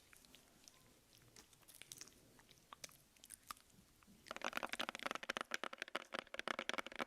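Close-miked ASMR mouth sounds: scattered wet clicks, then from about four seconds in a dense run of rapid, crackly clicking and smacking.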